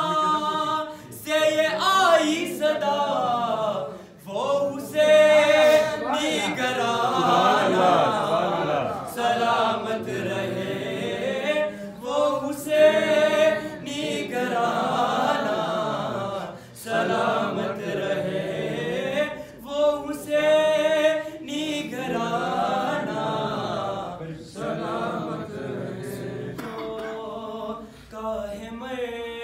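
A group of voices sings an unaccompanied Urdu devotional chant (manqabat) in praise of a Sufi saint. The phrases swell and fall in long sung lines.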